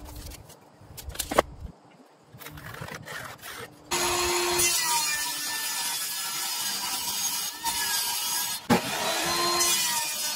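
After a few light knocks and clicks, about 4 seconds in a small benchtop table saw starts cutting through an OSB sheet: a steady, loud run of blade-through-wood noise. It breaks off briefly with a knock near 9 seconds, then carries on.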